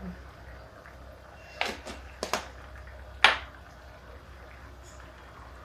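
Clinks and clicks of a small metal spice tin and a glass jar being handled and set down: a few sharp knocks from about a second and a half in, the loudest a little after three seconds, over a low steady hum.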